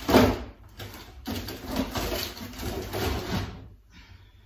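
A kitchen drawer sliding and things being handled: a sharp noisy burst at the start, then about two seconds of dense scraping and handling noise that dies away near the end.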